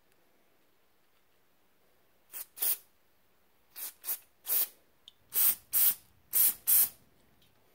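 Aerosol spray cleaner giving short hissing blasts, about nine in all and mostly in pairs, starting about two seconds in. The last four are the loudest. This is the kind of spraying done to flush out a clogged carburetor jet.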